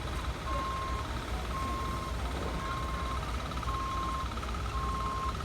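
Reversing alarm on construction machinery beeping steadily, about once a second, with a second, higher alarm pulsing quickly alongside it over a low engine rumble.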